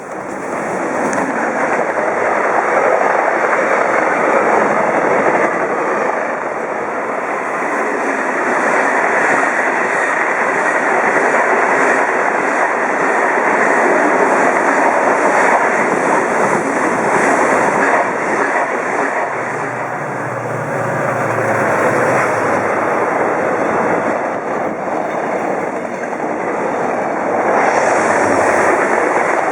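A train passing through the station at close range: a loud, steady rush of wheels and carriages on the rails, easing a little in the middle and swelling again near the end.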